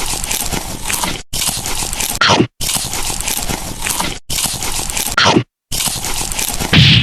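Eating sound effect, noisy crunching and chewing, played as five spliced clips of about a second each that cut off abruptly. Some clips end in a short sliding tone.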